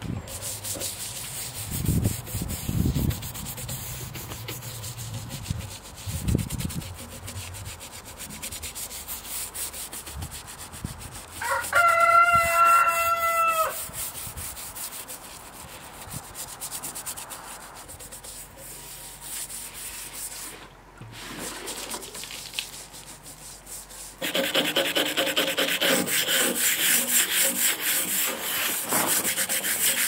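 Stiff hand scrub brush scrubbing a wet, freshly sanded concrete countertop to wash off the concrete dust. It is quieter scraping and rubbing at first and turns loud and steady for the last six seconds. A rooster crows once near the middle.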